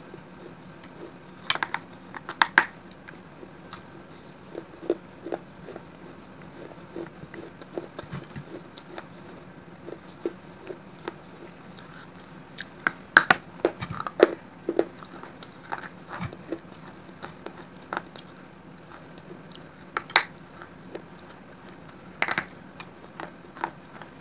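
A mouth biting and chewing hard pieces of fired terracotta from a broken clay gulak (piggy bank): sharp cracks as pieces snap off between the teeth, then gritty crunching. The loudest bursts of cracks come about two seconds in, around thirteen to fourteen seconds, and again near twenty and twenty-two seconds.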